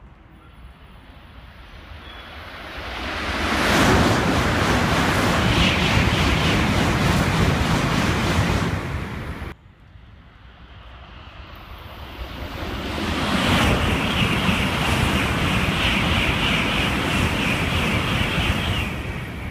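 Two Shinkansen bullet trains passing straight through a station at close to 300 km/h, one after the other. Each is a swelling rush of air and track noise that stays loud for several seconds. The first stops abruptly about ten seconds in; the second, with a steady high hiss over the rush, fades near the end.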